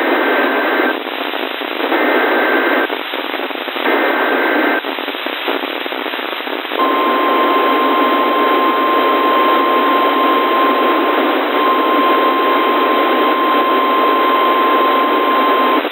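NOAA Weather Radio alert received through heavy radio static: three bursts of the SAME header data screech, about a second each and a second apart. About two seconds later the steady single-pitch warning alarm tone starts and is held for about nine seconds, then cuts off.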